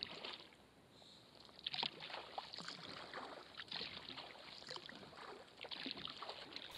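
Faint water sounds of a sea kayak on calm water: soft drips and small splashes against the hull at irregular intervals.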